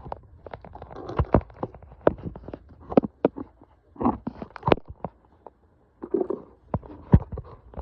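Irregular clicks, taps and short scrapes of hands working on small screws with a hand tool.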